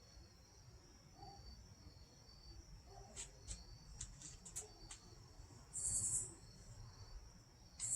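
Crickets chirping steadily in a high, pulsing trill. Several sharp clicks come a few seconds in, and two short hissing bursts, the loudest sounds, come near the end.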